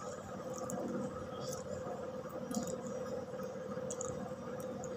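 Quiet room tone with a steady low hum, under a few faint soft clicks and mouth sounds of a man chewing cooked cardaba banana.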